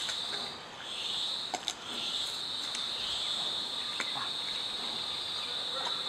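A high, shrill insect buzz, swelling and fading at first and then holding steady from about two seconds in. Over it come a few sharp cracks of bamboo as a giant panda bites and chews a stalk.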